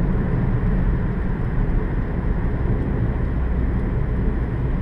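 Steady low rumble of desert wind buffeting a car, with the car's engine running underneath.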